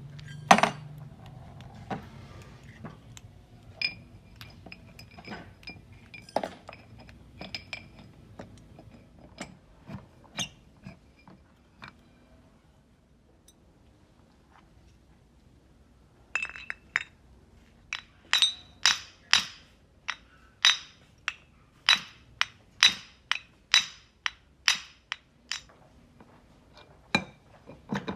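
Metal clinking and tapping: scattered clinks of metal tools and parts, a quiet spell near the middle, then a run of evenly spaced ringing taps on metal, about two a second.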